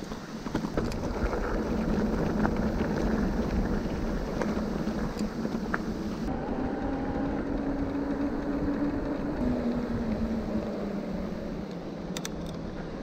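Mountain bike riding noise: a steady rush of wind on the microphone and rolling tyre noise, with scattered clicks and rattles. A low hum drifts slightly down in pitch in the second half.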